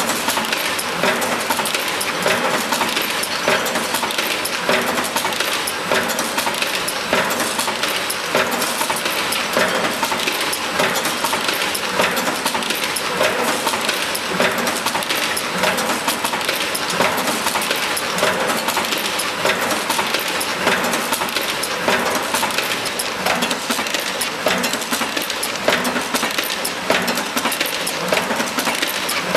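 Dimter ProfiPress high-frequency gluing press line running: a steady, dense clatter of many small metallic clicks from the machine's feed and rollers.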